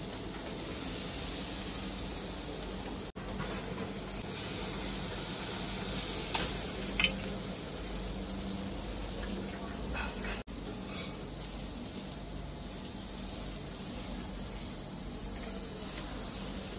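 Stuffed aubergines sizzling over a charcoal grill, a steady sizzle with a few sharp crackles about six, seven and ten seconds in.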